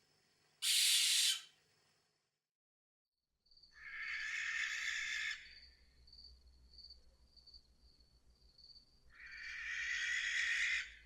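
Barn owl screeching: a short harsh shriek about half a second in, then two longer rasping screeches about five seconds apart. Crickets chirp in a steady pulsing trill behind the last two.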